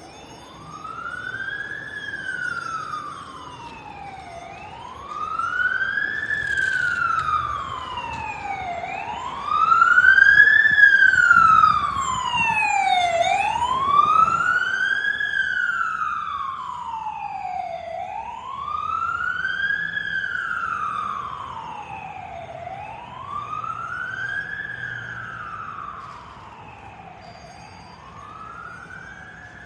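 Fire department emergency vehicle siren on a wail, sweeping slowly up and down about every four and a half seconds. It grows louder to a peak about ten seconds in, then fades away.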